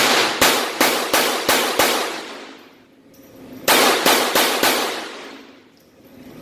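Glock 44 .22 LR pistol fired in quick succession: six shots at about three a second, a pause of about two seconds, then four more. Each shot rings out and fades before the next.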